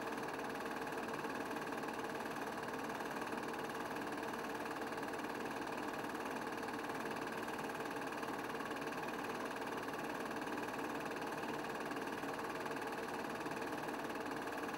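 Steady, unchanging mechanical whir and hiss with a constant hum, not the engines of the motorcycles on screen.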